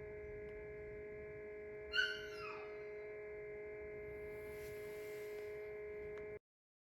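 Steady electrical hum made of several fixed tones. About two seconds in, a single short high call slides down in pitch. The hum cuts off abruptly shortly before the end.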